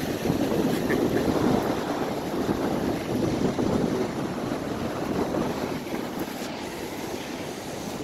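Steady wind buffeting the microphone over the continuous wash of surf breaking on the beach.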